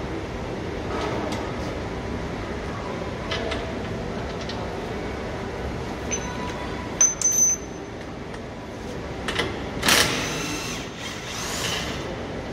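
Steady workshop background noise, broken by a few metallic clanks and knocks from hand tools. The loudest is a ringing clank about seven seconds in, with another sharp knock near ten seconds.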